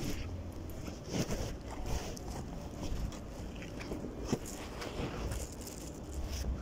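Recording-phone handling noise: muffled rustling and scattered soft knocks from the microphone moving against something while the lens is covered, over a steady low rumble.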